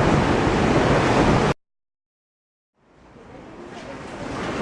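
Hurricane wind and rain in a dense rushing noise, buffeting the microphone, cut off abruptly about one and a half seconds in. After a second or so of dead silence, the wind noise fades back in and grows louder.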